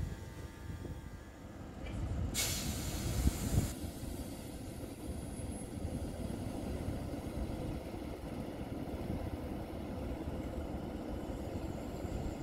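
A train standing at a station platform lets out a sharp hiss of air from its air brakes a couple of seconds in, lasting about a second and a half and cutting off sharply, over a steady low rumble from the train.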